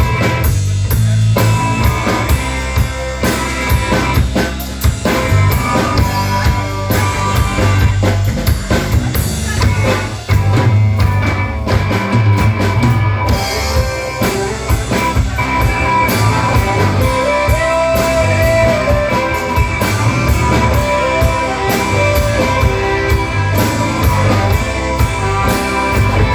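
Rock music instrumental section: drum kit with bass drum and rimshots, bass and guitar playing.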